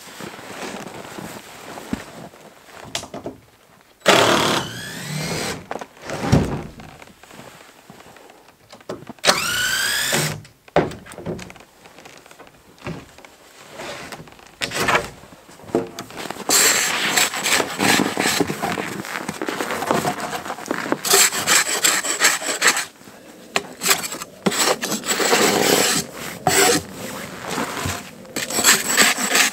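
Handsaw cutting a wooden 4x4 beam in steady back-and-forth strokes, starting a little past halfway, with a short pause near the three-quarter mark. Before that, scattered handling knocks and two brief rising whirrs.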